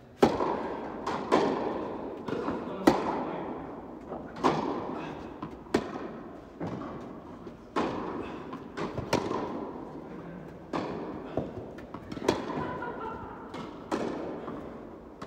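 Tennis balls struck by rackets and bouncing on an indoor court: a serve, then a rally, with a sharp pop about every one to one and a half seconds, each echoing through the large hall.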